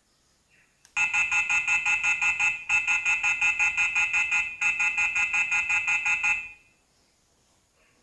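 Yoosee SD-M5 smart doorbell's speaker sounding a loud, rapid beeping tone, about five beeps a second in three runs lasting some five seconds in all, as the freshly powered doorbell boots up.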